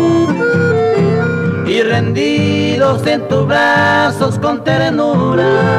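Paraguayan polka music: a lively lead melody over a steady guitar accompaniment.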